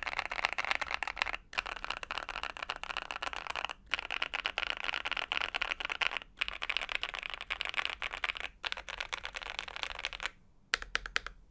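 Fast typing on a Monsgeek M3 aluminium TKL mechanical keyboard fitted with lubed Akko CS Piano switches and PBT keycaps. It is a dense run of keystrokes broken by short pauses every couple of seconds, stops about ten seconds in, and is followed by a few last keystrokes near the end.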